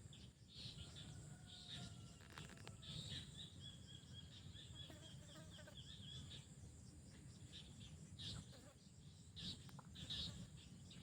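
Bird calling faintly: short high calls throughout, with a drawn-out trill at a steady pitch from about three seconds to about six seconds in, over a low background rumble.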